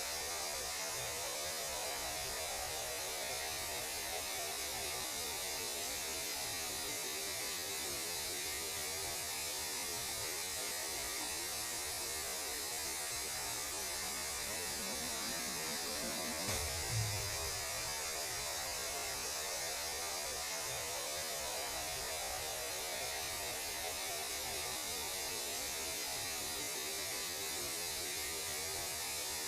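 Steady static-like hiss with a low hum beneath it, space radio noise (electromagnetic radiation from space rendered as sound). A brief low thump comes about seventeen seconds in.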